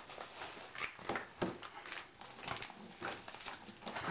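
Plastic poly mailer bag crinkling and rustling as it is pulled open and handled, with irregular crackles and a few sharper clicks.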